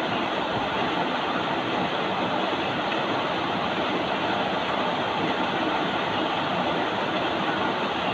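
Steady rain, an even, unbroken hiss with no separate drops or other events standing out.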